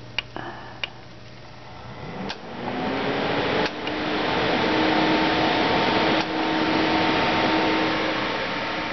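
A few clicks as the fan cable is plugged back into a Corsair H100i pump head, then the cooler's two stock 120 mm radiator fans spinning up: a rising whir that swells to a loud, steady rush of air about four seconds in, easing off a little toward the end. The fans run at high speed.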